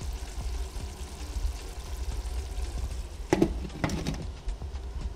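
A glass lid set onto a pan of simmering curry chicken, knocking twice against the rim about three and a half seconds in, over a steady low hum.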